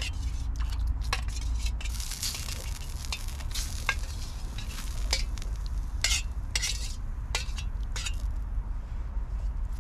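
A metal spoon scraping and clinking against a small metal plate as pieces of tofu are pushed off it into a pot of water on a camping stove, with a steady low rumble underneath.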